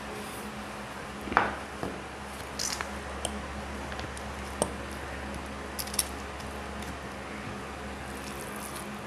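Fingers mixing boiled vegetables into rice on a plate, with soft squishing and a few sharp clinks of crockery. The loudest clink comes about a second and a half in. A steady low hum runs underneath.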